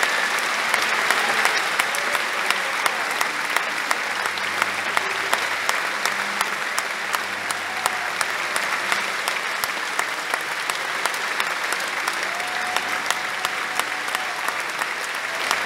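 Large theatre audience applauding steadily: dense, even clapping with single sharp claps standing out.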